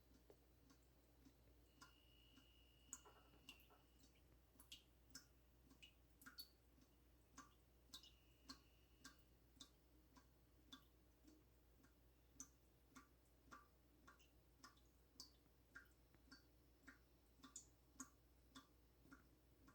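Near silence with faint, regular ticking, about two ticks a second.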